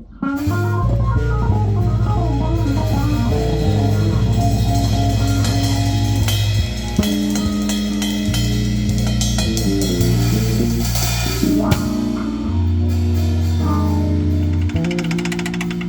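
A live trio of guitar, bass guitar and drum kit jamming an instrumental funk groove, with a prominent bass line.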